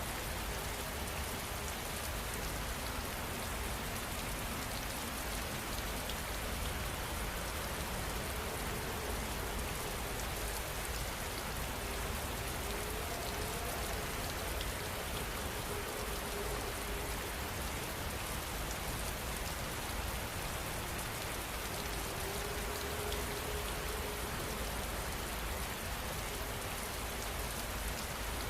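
Heavy rain falling steadily, a dense even patter of drops on surfaces that neither builds nor eases.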